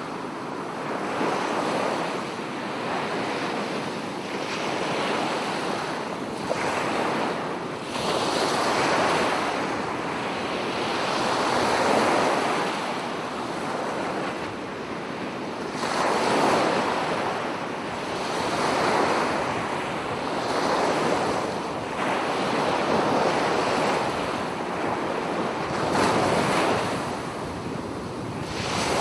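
Ocean waves breaking and washing ashore, the surf swelling and falling back every three to four seconds.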